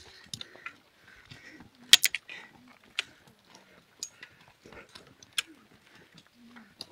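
Irregular sharp clicks and knocks of trekking-pole tips and footsteps striking roots and earth on a steep trail, with clothing and gear rustling; the loudest knocks come about two and three seconds in.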